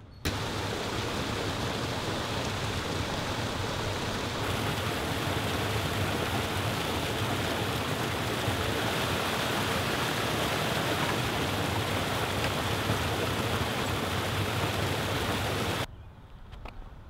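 Water pouring over a small stone ledge in a steady rush. It starts abruptly and cuts off sharply near the end.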